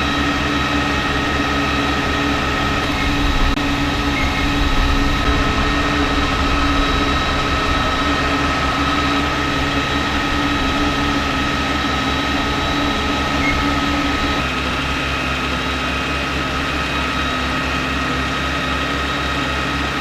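Heavy engine running steadily, with a steady high whine over it; a low hum within it stops about fourteen seconds in.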